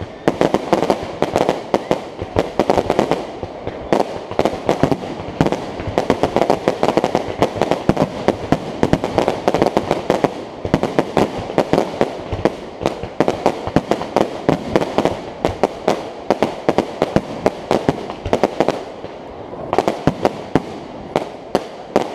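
Aerial firework shells bursting in a rapid barrage, their reports overlapping with dense crackling stars, many bangs a second, with a brief lull near the end.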